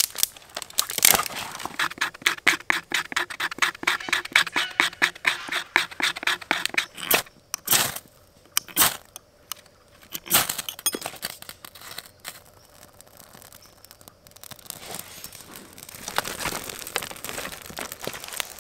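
Fire lighting with a ferro rod over birch bark: a long run of rapid, even scraping strokes, then a few separate sharp scrapes of the rod, and near the end faint crackling as the twig kindling catches.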